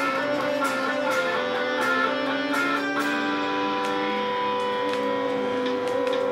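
Background music led by guitar, with held notes and picked strings at a steady level.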